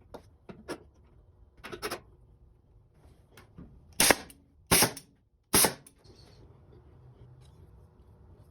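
18-gauge brad nailer firing three times, sharp shots under a second apart, driving pins into the molding. A few lighter clicks and knocks come before them.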